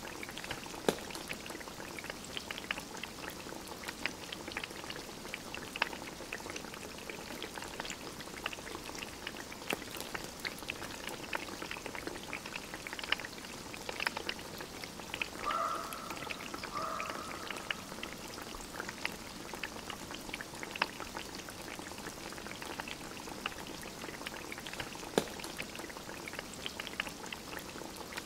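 Small wood stove fire crackling, with sharp pops scattered throughout over a steady hiss. About halfway through come two short high-pitched cries, like a cat's meow.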